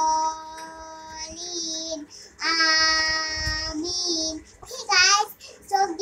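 A young girl singing in long held notes: two sustained notes of about two seconds each, then a short wavering run about five seconds in.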